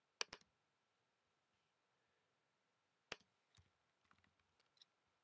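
A computer mouse double-clicks just after the start, clicks once about three seconds in, and then a few faint keyboard keystrokes follow. Otherwise near silence.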